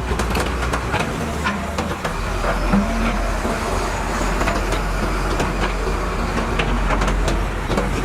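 Excavator diesel engine running steadily at a low rumble, with irregular knocks, clanks and scrapes of digging scattered over it.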